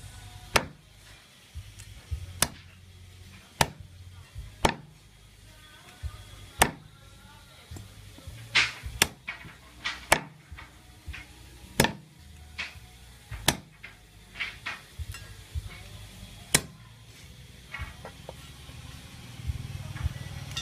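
Cleaver chopping raw fish into chunks on a wooden chopping block: a sharp chop every second or two, some in quick pairs.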